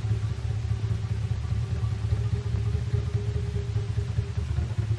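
Drumsticks beating rapidly on the strings of an upright double bass while the bassist stops the notes, giving a dense, steady stream of low, pitched, drum-like strokes.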